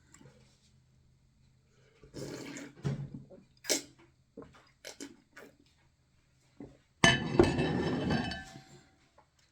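Close-miked eating sounds of fufu: scattered short smacks and clicks with dish clinks, and a louder, dense noisy sound lasting about two seconds starting about seven seconds in.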